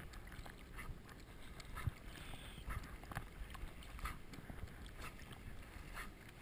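Lake water sloshing and lapping against a GoPro housing strapped to a swimming dog's lifejacket, with soft splashes about twice a second from the dog's paddling strokes.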